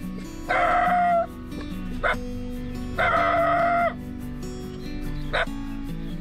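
A rooster crowing twice, each crow about a second long, holding one pitch and then dropping at the end.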